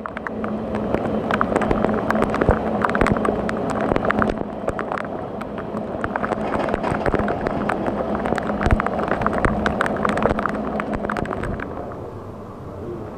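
Heavy rain falling, with many sharp taps and a steady machine hum underneath that stops about eleven seconds in.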